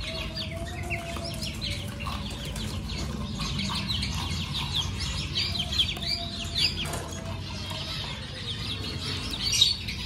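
Caged birds calling: a constant stream of quick, high, falling chirps, with a lower drawn-out call about a second in and again around six seconds, over clucking chickens. A few light knocks in the second half as the plastic poultry drinker is handled.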